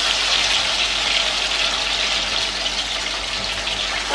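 Marinated boneless chicken pieces deep-frying in hot oil, a steady, dense sizzle.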